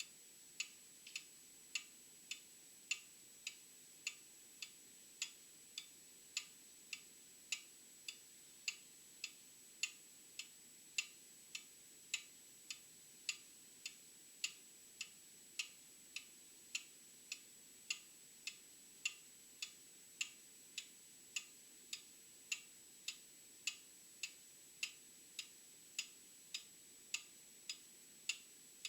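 An old mechanical clock ticking steadily, a little under two ticks a second, each tick a short sharp click.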